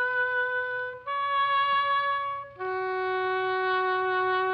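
Background music: a solo wind instrument playing a slow line of long held notes, stepping up slightly about a second in, then dropping to a lower note held from about two and a half seconds in.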